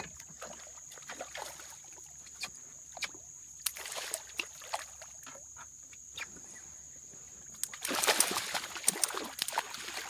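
Hooked fish thrashing at the water's surface beside the boat, with a dense burst of splashing near the end. Before that come scattered small splashes and taps, over a steady high thin whine.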